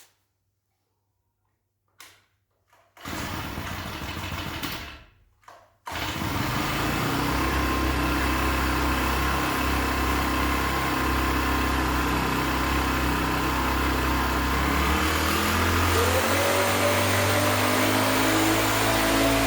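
A hand-built RC Cat D11 bulldozer model starting up with a few clicks and a brief rush, then running steadily with an engine-like hum. Near the end a whine rises in pitch.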